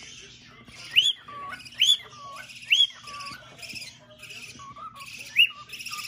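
Cockatiel singing: loud whistled notes that swoop up and then drop, about one a second, with a longer gap before the last, over a softer chattering warble.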